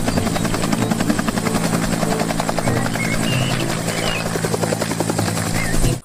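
Bell UH-1 military helicopter hovering just above the ground: the fast, even beat of its main rotor over a steady engine hum. It cuts off suddenly at the end.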